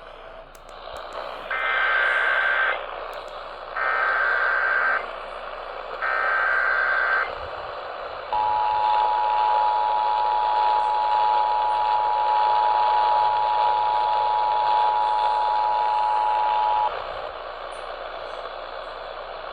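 Emergency Alert System activation received on AM radio. Three short warbling bursts of SAME header data, each about a second long, are followed by the two-tone attention signal, held for about eight and a half seconds and cutting off sharply. Steady AM static hiss runs underneath. The alert is a severe thunderstorm warning.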